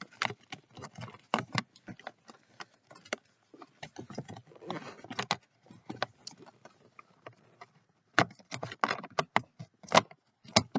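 Irregular clicks, knocks and rattles of a plastic cabin air filter cover being handled and fitted, its hinges worked into place, with a louder run of knocks near the end.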